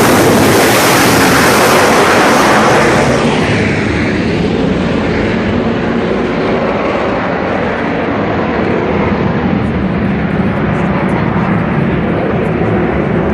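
A jet fighter passes close overhead, its engine noise loudest in the first three seconds. The noise then drops away into a steady, heavy rumble.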